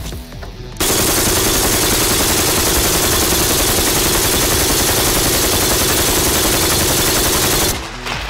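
RPK light machine gun (7.62×39mm) firing on full automatic in one unbroken burst of about seven seconds. The burst starts about a second in and stops near the end, emptying a 75-round drum.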